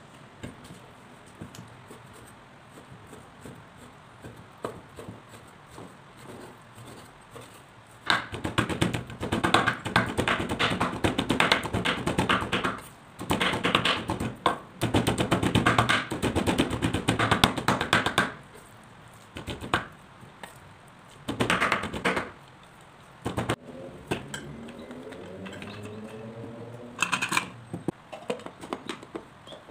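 Cleaver chopping and mincing chicken on a bamboo cutting board: a long run of rapid knocks starting about a quarter of the way in, then a few shorter bursts of chopping.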